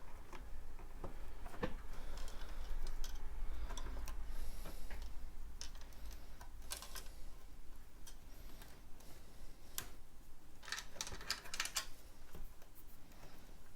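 Plastic LEGO bricks being handled and fitted together: scattered small clicks and taps, with a quick run of clicks near the end, over a faint low hum.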